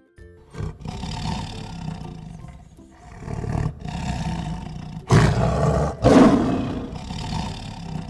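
Tiger roaring: four long roars one after another, the two loudest about five and six seconds in.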